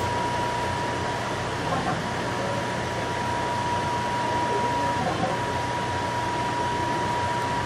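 Steady ventilation hiss of a cleanroom lab, with a faint low hum under it and a thin steady whine that drops out briefly about five seconds in.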